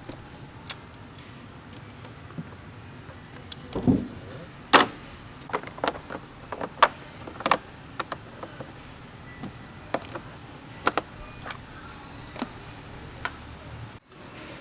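Scattered sharp clicks and clinks at irregular intervals, with a duller knock about four seconds in: hand tools and engine parts being handled and fitted during reassembly of the engine bay.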